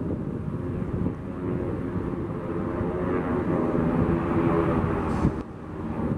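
Jet engines of a formation of smoke-trailing aerobatic jets rumbling as they climb, growing louder and then dropping off suddenly about five seconds in.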